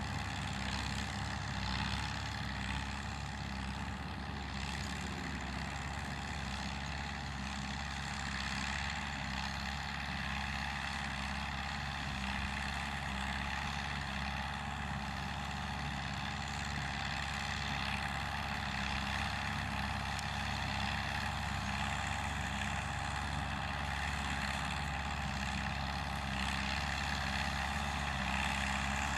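Vintage tractor engine running steadily under load, pulling a small square baler through a hay windrow.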